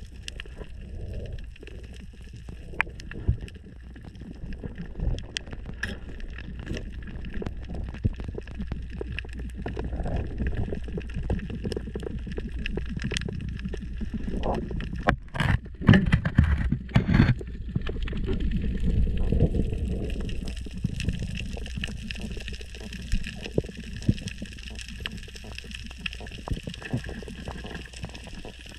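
Underwater sound on a reef: a steady low rush of water with scattered faint crackling clicks. About halfway through, a cluster of loud sharp knocks as the three-prong pole spear is let go and strikes two redfish in the cave.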